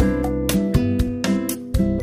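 Background music: a strummed guitar playing chords in a steady rhythm, ending on a chord left to ring.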